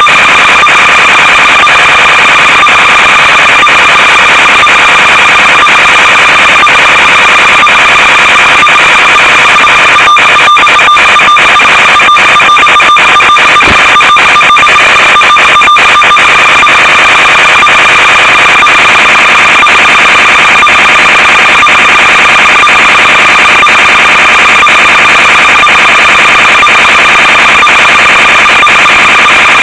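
Loud, unchanging electronic buzz and hiss from an analog FPV video receiver's audio channel, a high whine of a few fixed tones over static. Crackles break in where the video link drops out, around ten to sixteen seconds in.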